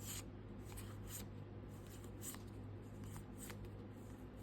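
Pokémon trading cards from a freshly opened booster pack being slid and flipped through by hand: a few faint, soft flicks and rubs of card on card.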